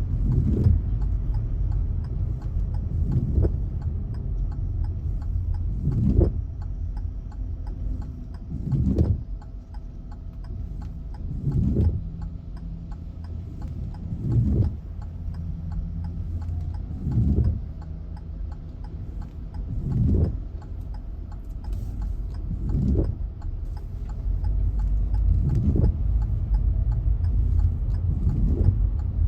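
Car windshield wipers sweeping at an even pace, about once every three seconds, over the steady low rumble of the car driving in heavy rain.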